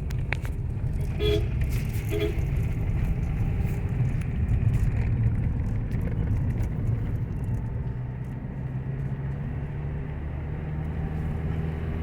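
Car engine and road noise while driving, a steady low rumble, with two short horn toots a second or so apart near the start.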